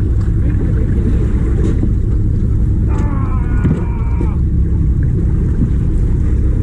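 Fishing boat engine running with a loud, steady low drone. About three seconds in, a brief higher-pitched wavering sound rises over it for a second or so.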